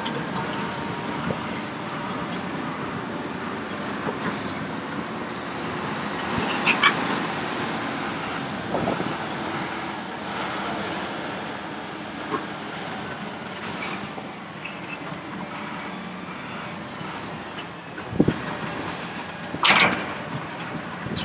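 Hitachi ZX870 hydraulic excavator's diesel engine running under load as it digs, slews and swings its bucket. Short sharp clanks of bucket and rock come a few times, the loudest near the end as a full bucket swings over the dump truck.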